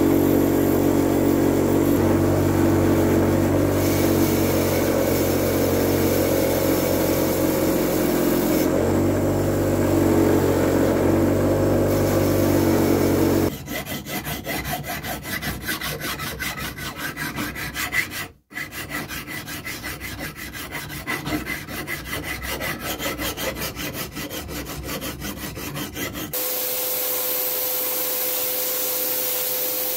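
A bench grinder running steadily with a metal rod held against its wheel. About 13 seconds in it gives way to a hand file stroking back and forth over a metal part clamped in a vise. Near the end comes the steady hiss of a sandblasting gun in a blast cabinet.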